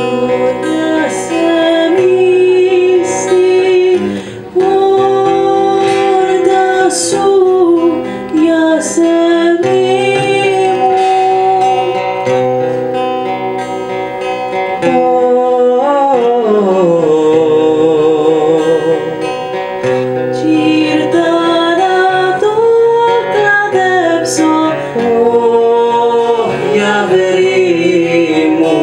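A woman singing a slow Greek song with long, wavering held notes and sliding ornaments, accompanied by a strummed acoustic guitar.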